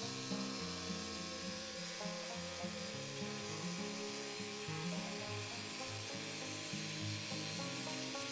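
Background music: a melody and bass line moving through steady stepped notes at an even level.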